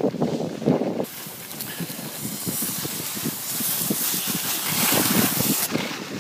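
Skis hissing as they slide over packed snow, with wind buffeting the microphone. The hiss comes up about a second in and drops away near the end.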